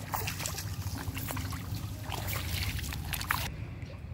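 Water trickling and dripping from a nylon cast net as it is hauled up out of the shallows, with scattered small splashes and a steady low rumble of wind on the microphone.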